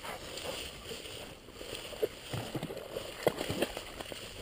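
Footsteps and rustling through dry grass, heard close on a body-worn camera's microphone: irregular soft thumps over a steady hiss, a few sharper knocks in the second half.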